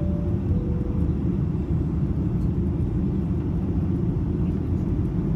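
Boeing 737-800 cabin noise in flight: a steady, loud, deep rumble of the CFM56-7B engines and airflow over the fuselage. Two short faint tones, the second a little lower than the first, sound within the first second.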